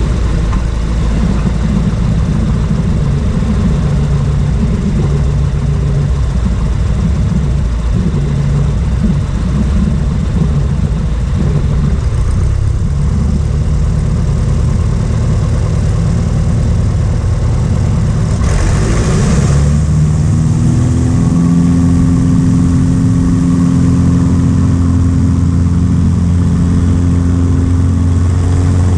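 Light aircraft's piston engine and propeller running unevenly at low taxi power, then rising to a higher, steady power about two-thirds of the way in.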